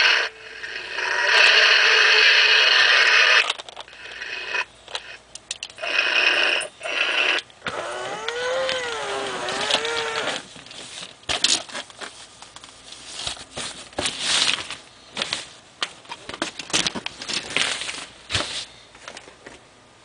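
WowWee robotic toy crocodile playing its sound effects: loud hissing bursts in the first few seconds and again about six seconds in, then a wavering, pitched growl about eight seconds in. After that come scattered short clicks and knocks.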